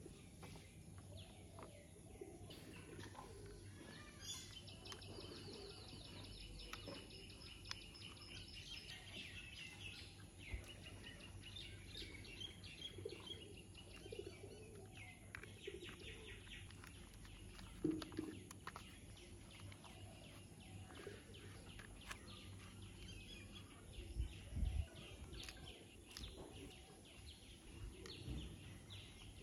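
Hard plastic toy parts being handled on a tabletop: light clicks and knocks, a louder knock past the middle and a few thumps near the end. A faint high chirping of rapid repeated notes runs behind them from a few seconds in.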